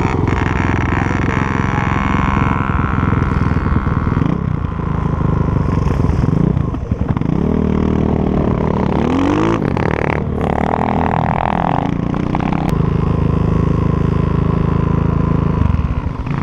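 Dirt bike engines running under throttle, their pitch rising and falling as the riders speed up and ease off, with the strongest revving in the middle; the engine note eases near the end.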